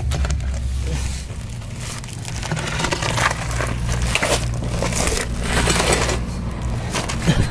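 Plastic tarp crinkling and rustling as it is handled, busiest in the middle, over a steady low engine hum.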